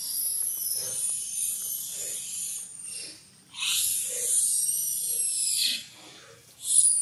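Baby macaque screaming in long, high-pitched cries: a long cry of about three seconds, a second of about two seconds, and the start of a third near the end. These are the distress screams of an infant kept from nursing.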